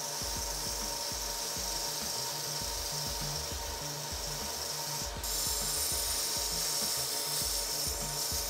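Small 1-inch belt sander grinding a bevel into a stainless steel sheet-metal blade: a steady grinding noise over the machine's constant tone, getting louder about five seconds in.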